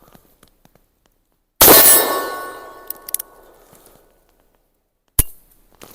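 A Cimarron .45 Long Colt single-action revolver fires one loud shot about a second and a half in, ringing out and fading over about two seconds. A few light clicks follow, then a single sharp snap near the end.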